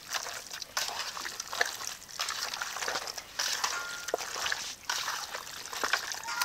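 A hand squeezing and kneading raw chicken pieces in a wet marinade of yogurt, ground spice paste and mustard oil in a bowl: irregular wet squelching and sloshing.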